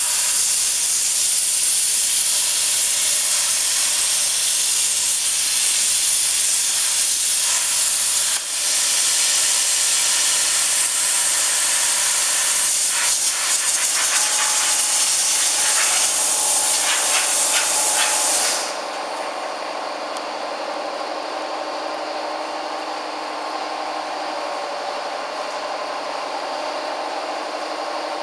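CNC oxy-fuel cutting torch giving a loud, steady hiss of gas and flame. About two-thirds of the way through the hiss cuts off suddenly, leaving a quieter steady sound with a faint hum.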